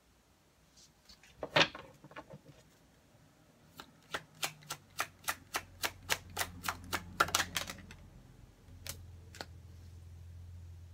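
Tarot cards being shuffled by hand. A sharp card snap comes about one and a half seconds in, then a quick run of card slaps at about three a second, and two more single snaps near the end.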